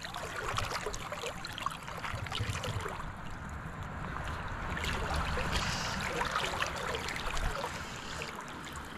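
River water running and lapping: a steady rippling with many small splashes and trickles.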